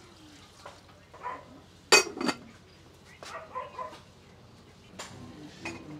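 A dog barking: two loud, sharp barks in quick succession about two seconds in, with a few fainter short sounds around them.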